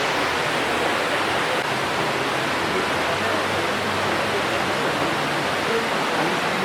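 Elephant Falls rushing: a steady, even roar of falling water.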